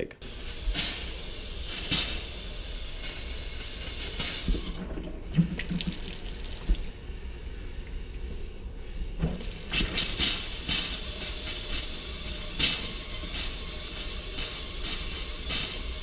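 Kitchen faucet's hot side running, water and trapped air sputtering out after the water heater tank has been refilled. The flow cuts out briefly twice near the middle.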